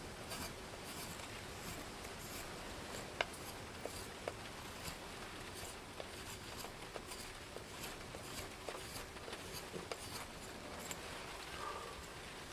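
Schrade Frontier SCHF42D knife blade shaving and scraping wood in short, irregular strokes, with one sharp click about three seconds in, over a steady hiss.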